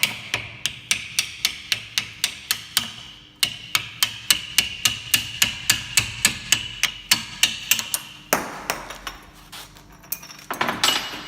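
Rapid hammer blows on steel, about four a second, driving the old wheel-bearing race off the hub, with a metallic ring under the strikes. The blows pause briefly about three seconds in, run on until about eight seconds, and a few more come near the end.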